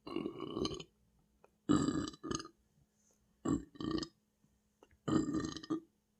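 A person belching loudly after a very large meal: four long belches about a second apart, the second and third each breaking into two parts.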